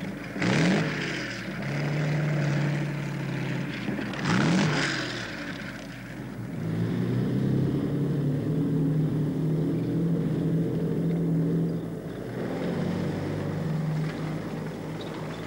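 Vehicle engine sound effect: two quick whooshing passes, rising then falling in pitch, about four seconds apart, then a steady low engine hum as the vehicle drives on.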